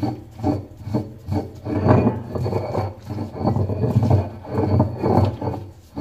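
Stone roller of an ammikkallu grinding stone rolled and rubbed over the stone slab, crushing bird's eye chillies and shallots, in a steady series of rough grinding strokes.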